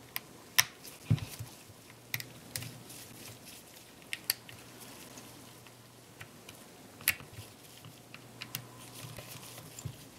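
Scattered light clicks and ticks of a small screwdriver working the tiny screws out of a Canon EOS 60D's bottom plate, with handling of the camera body, over a faint steady low hum.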